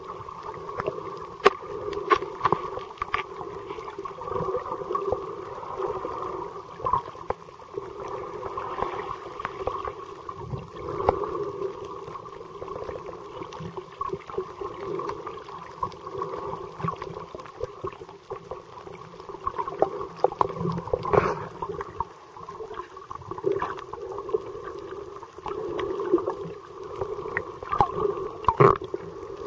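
Muffled underwater sound: a steady droning hum with scattered clicks and knocks.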